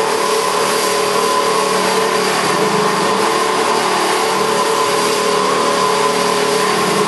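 Alligator HD620 SAF heavy-duty horizontal bandsaw, with a 41 mm blade, cutting through a structural steel beam in a test cut. It runs steadily and loudly, several constant tones over a hiss, with no change in pace.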